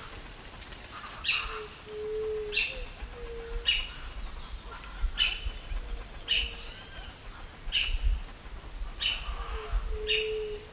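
Birds calling in the wild: a harsh call repeated about eight times, roughly once every second and a bit. A lower, drawn-out note sounds a few times, and a low rumble runs underneath.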